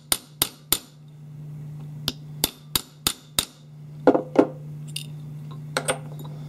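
Small gunsmithing hammer tapping a screwdriver tip down into a damaged gun-screw slot, reforming the slot's square shoulders: sharp light metallic taps about three a second in two short runs. Two heavier knocks follow about four seconds in, then a couple of faint clicks.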